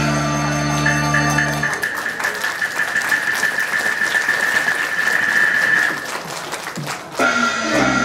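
Live Taiwanese opera accompaniment music. Low held chords for the first second and a half give way to a long high held note over a busy rattling texture, which ends about six seconds in; the band comes back fuller near the end.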